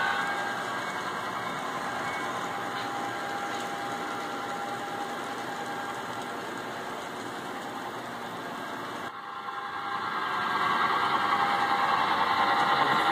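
Model railroad train running on layout track, with a steady mechanical hum and rattle. The sound breaks off briefly about nine seconds in and comes back louder.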